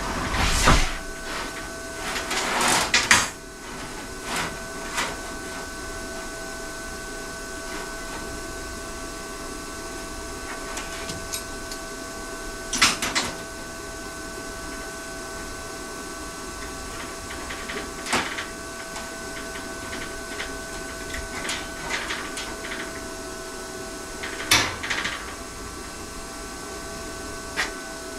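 Workshop handling sounds: scattered knocks and clatter, a cluster in the first few seconds and single sharp ones about 13 and 25 seconds in, over a steady electrical-sounding hum.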